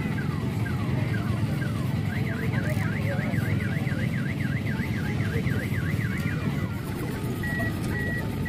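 An electronic alarm siren cycling through its tones. It starts with a string of falling chirps, then a fast warble for about four seconds, then short even beeps, over a steady low background hubbub.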